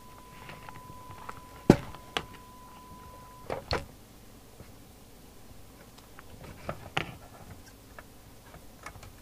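Knocks and clunks of a Rotel RVC240 CB radio's metal case being turned over and set down on a cloth-covered bench, then handled by its bottom cover: one sharp knock about two seconds in is the loudest, with a few lighter knocks after it. A faint steady high tone runs underneath and stops after about three and a half seconds.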